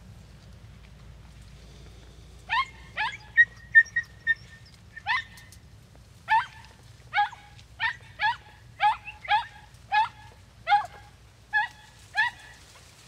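Podenco hounds giving a run of short, high yelps, about two a second, starting a few seconds in: the hounds giving tongue as they work a rabbit through the cover.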